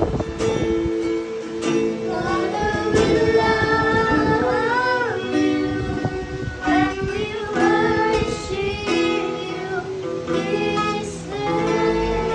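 Children singing a worship song to a strummed string accompaniment.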